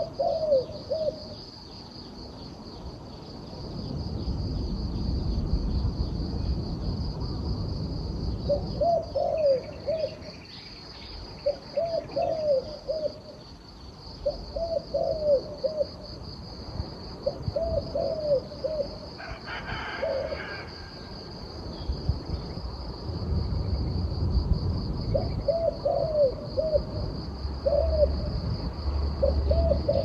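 Spotted dove cooing in short repeated phrases, one right at the start and then, after a pause, about every three seconds, over a steady high-pitched insect drone and a low rumble.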